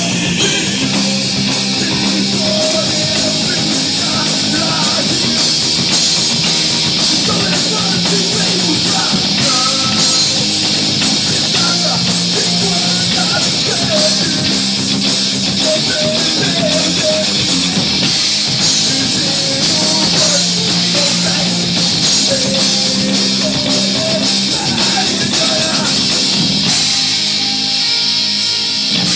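Rock band playing live: electric guitars, bass guitar and drum kit, loud and dense. Near the end the high cymbal wash drops away and the guitars carry on.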